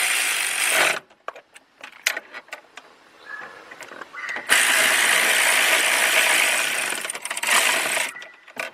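Ratchet wrench on an extension clicking rapidly as T30 bracket bolts are tightened down. It runs in two long spells, about the first second and again from about four and a half to eight seconds in, with scattered single clicks and taps of the tool between.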